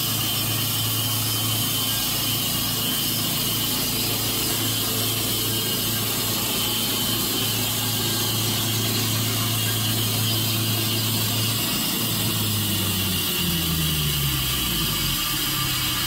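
Wood-Mizer LT70 band sawmill, driven by its Kubota 57 horsepower petrol engine, running a steady cut along a squared log. The engine note holds level, then shifts and glides in pitch near the end.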